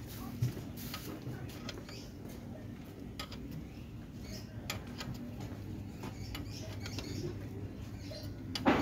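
Scattered light clicks and scrapes of hands and tools working on the underside of a motor scooter, with one sharp knock near the end.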